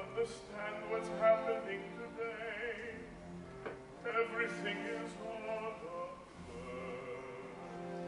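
Slow orchestral stage music, playing long held notes in rising and falling phrases.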